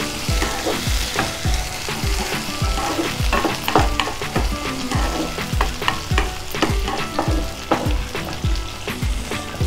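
Small sambar onions frying in hot oil in a kadai, sizzling steadily while a spatula stirs and scrapes them round the pan in repeated short strokes.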